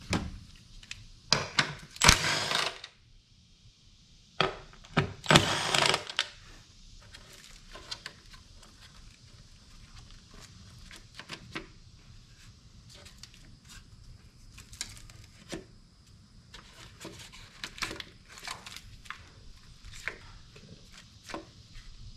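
Hand work in an engine bay: two loud bursts of tool or parts-handling noise a few seconds in, each lasting about a second and a half, then scattered light clicks and taps as wiring harness clips and connectors are handled.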